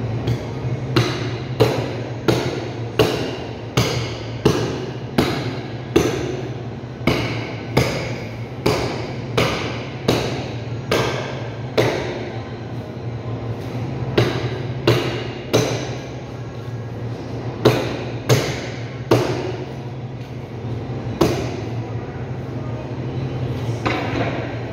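Meat cleaver chopping into a beef forequarter on a plastic cutting board: sharp blows about every three-quarters of a second for the first half, then sparser chops with pauses between them. A steady low hum runs underneath.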